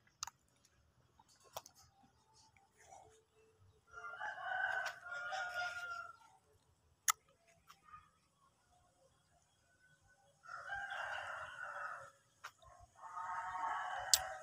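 Rooster crowing three times, each a long call of a second and a half to two seconds, about four, ten and a half, and thirteen seconds in. A few sharp clicks fall between the crows.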